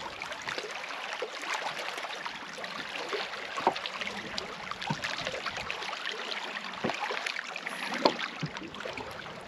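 Small waves lapping and splashing against a pebbly lakeshore, a steady wash broken by many small, irregular splashes.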